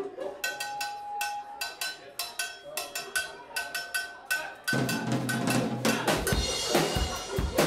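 A live rock band starting a song: a quick, even run of drum ticks alone, then the full band comes in after about four and a half seconds with bass and guitars, the kick drum joining a second later.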